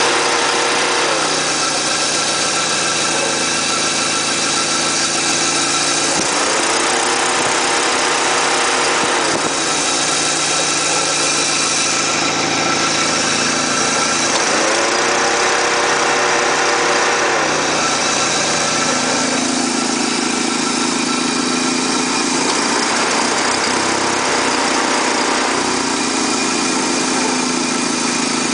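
Neon's four-cylinder engine idling with an abnormal whirring tone over it that repeatedly rises, holds for a few seconds and drops away again, a noise tied to the radiator and engine problem.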